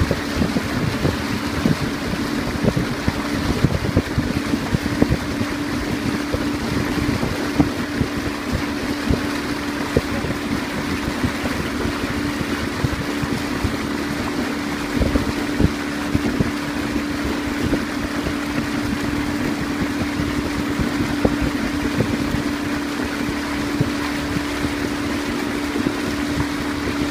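A small boat's motor running steadily while under way, a constant hum over the rush of the water, with wind buffeting the microphone.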